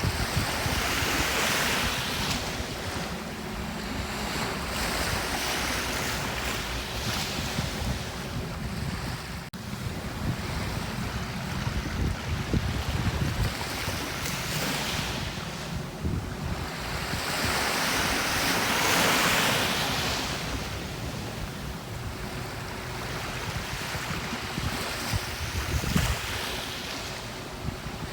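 Gentle sea waves washing up on a beach, the surf swelling and falling away several times, with wind buffeting the microphone.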